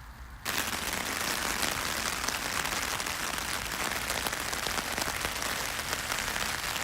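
Rain pattering steadily on a poncho stretched as a tarp over a hammock, a dense hiss of many small drop ticks. It starts abruptly about half a second in.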